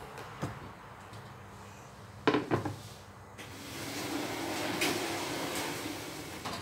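A ceramic plate set down on a wooden table with two sharp knocks, followed by a few seconds of steady hiss.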